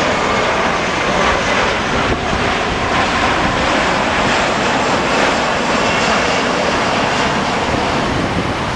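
Airbus A330-300 on final approach with gear down, its twin Pratt & Whitney PW4000-series turbofans passing low overhead: loud, steady jet engine noise.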